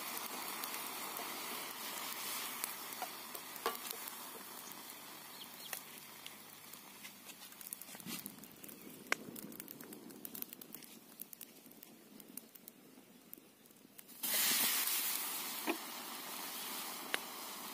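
Soap and water sizzling in a black iron wok over a wood fire, with the burning sticks crackling and popping. About fourteen seconds in, a sudden loud hiss breaks in and slowly fades.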